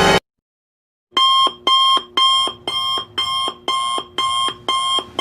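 Electronic beeping: the same beep repeated about twice a second, like an alarm, starting about a second in just after a music clip cuts off.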